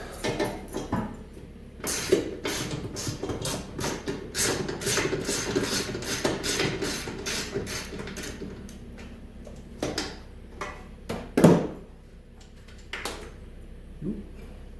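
Hand ratchet wrench clicking in quick strokes while bolts are worked loose on a snowmobile, followed by a few separate metal knocks, the loudest about eleven and a half seconds in.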